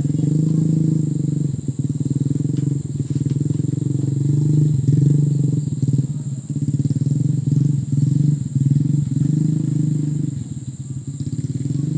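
A small engine running steadily, a low, rapid, even chugging with slight rises and dips in level.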